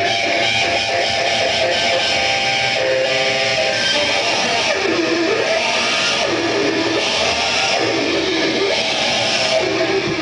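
Heavy metal music played loud, led by distorted electric guitar. From about five seconds in, a riff repeats roughly every second and a quarter.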